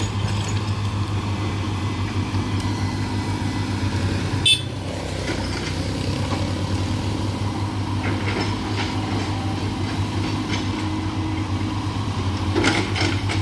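Heavy diesel engines of excavators running steadily, with a single sharp knock about four and a half seconds in.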